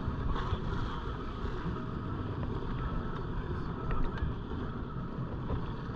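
Jet ski engine running steadily under way on open sea, mixed with wind noise on the microphone.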